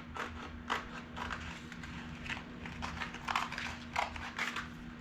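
Old pair of scissors cutting coarse 60-grit sandpaper into a disc: a run of short, irregular snips and rustles, about two or three a second, over a steady low hum.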